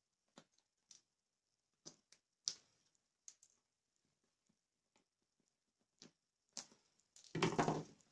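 Scattered small clicks and taps of a bicycle saddle's plastic shell and leatherette cover being handled, then, about seven seconds in, a short, louder rustling crackle of the cover material being worked.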